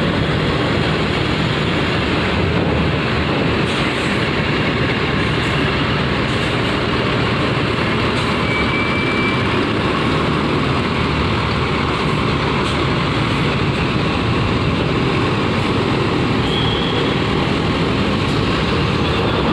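Mercedes-Benz coach's diesel engine running with a steady low rumble as it drives slowly up a steel ferry loading ramp. A short high beep sounds about eight seconds in.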